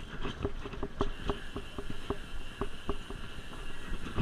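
Bicycle rolling across a steel hanging footbridge, the deck clanking under the tyres in irregular knocks, several a second, each with a short metallic ring. The knocks thin out toward the end.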